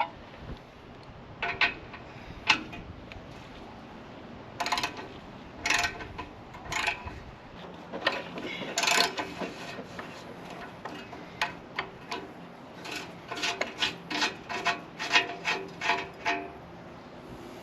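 Spark plug thread chaser being worked into the stripped threads of an exhaust O2 sensor port, metal scraping and clicking in short irregular strokes that come more often in the second half.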